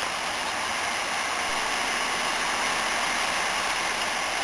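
Heavy tropical rain falling steadily in a downpour, an even hiss of water.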